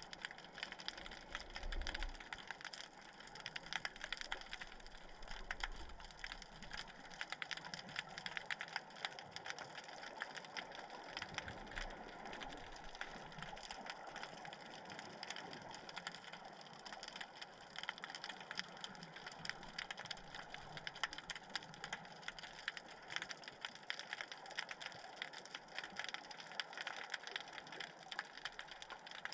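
Dense, irregular crackle of countless tiny clicks heard underwater, the sound of snapping shrimp.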